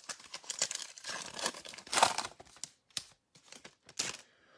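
Wrapper of a 2021 Donruss football trading-card pack crinkling and tearing as it is opened, with the loudest rip about two seconds in and a few sharp crinkles near the end.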